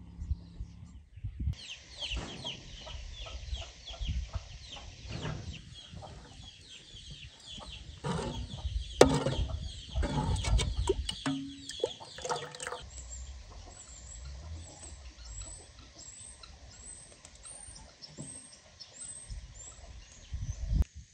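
Chickens clucking, with small birds chirping high above. The clucking is busiest in the first half and stops at about thirteen seconds, leaving mostly the birds' repeated high chirps.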